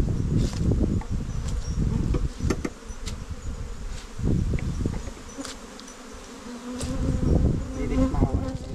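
Bees buzzing close by, a steady hum that grows stronger in the second half, over uneven low rumbling and a few sharp clicks.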